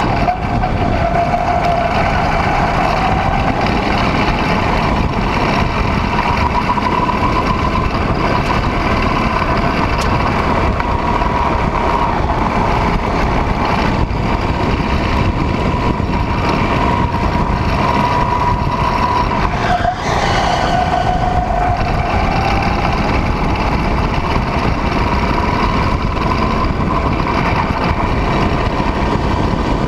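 Go-kart engine running hard on the track, over the rush of wind at the onboard microphone. Its pitch sags briefly just after the start and again about twenty seconds in, then climbs back up as the kart accelerates.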